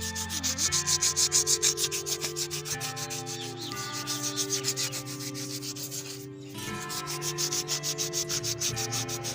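Sandpaper rubbed back and forth in rapid strokes over a motorcycle drum-brake shoe's friction lining, cleaning the surface so the brake grips properly; the rubbing pauses briefly about six seconds in.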